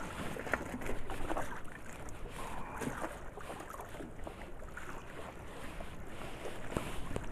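Wind buffeting the microphone at sea, with scattered light clicks and rustles from hands working a woven bamboo fish trap.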